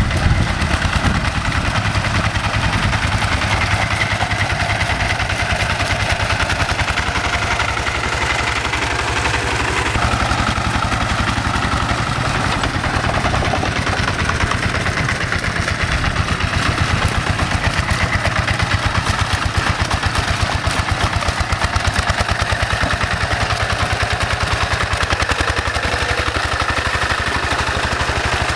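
Hand tractor's single-cylinder diesel engine running steadily under load as it drives its cage wheels through a muddy rice paddy: a fast, even chugging throughout.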